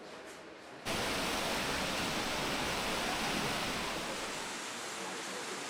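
Steady rushing of a waterfall, cutting in abruptly just under a second in.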